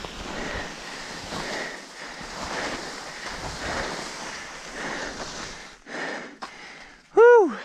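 Wind noise on an action camera's microphone, swelling and easing, dies down a little before the end. Near the end a person gives one short, loud whoop that rises and falls in pitch.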